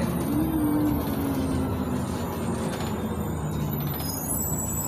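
Cabin noise of a LiAZ 5292.67 city bus under way: its YaMZ-53624 compressed-natural-gas engine and ZF automatic gearbox running, with road and tyre noise. The engine note rises briefly near the start and then slowly falls.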